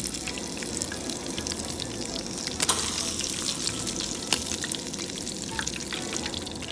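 Fish pieces shallow-frying in hot oil in a pan: a steady sizzle dense with small crackling pops. Two louder clicks stand out, a little before halfway and again about two-thirds in.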